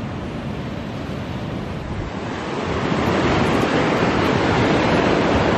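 Ocean surf breaking and washing up the sand, with wind on the microphone. The rush of water grows louder about two to three seconds in, at the water's edge.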